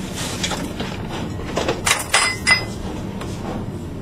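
Long knife cutting through a rolled sheet of sesame nougatine on a marble slab: a few sharp cracks and clicks of the brittle sheet and blade, loudest about halfway through.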